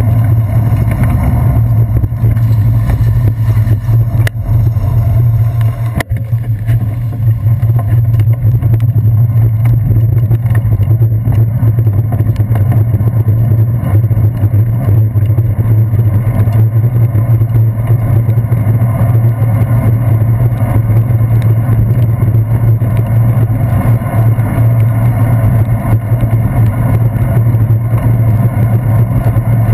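Steady low rumble of wind and road vibration picked up through a handlebar-mounted GoPro's sealed housing as the bicycle rolls along a wet street, with a couple of sharp knocks from bumps about four and six seconds in.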